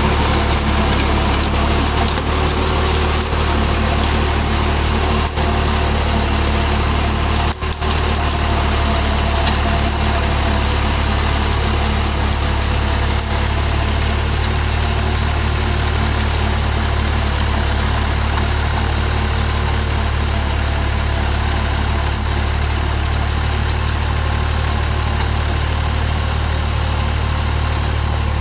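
Tractor diesel engine running steadily under load as it drives a Cropking rotavator, the rotor blades churning wet soil, a loud continuous hum with a rough, noisy edge.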